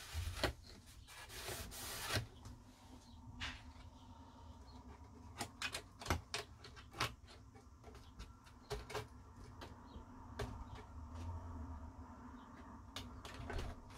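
Hands rubbing and pressing along the glued edge trim of a wooden record-deck plinth, with scattered small clicks and taps.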